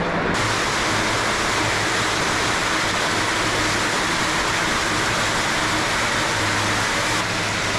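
Steady rush of brook water flowing through an underground culvert.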